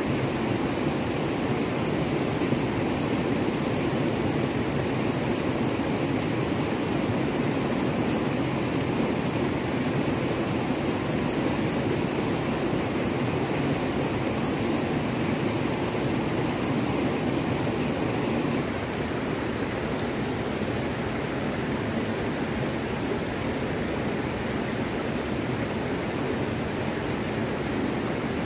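Steady rush of fast river rapids tumbling over rocks, turning a little quieter about two-thirds of the way through.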